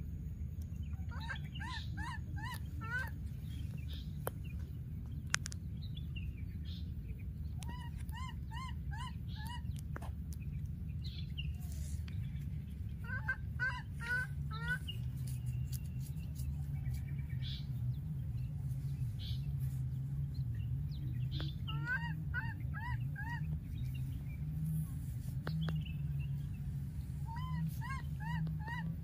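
Baby monkey calling in repeated bouts of four to six short, high, rising-and-falling calls, a bout every few seconds: the separation calls of a young monkey that has lost its playmate. A steady low rumble runs underneath.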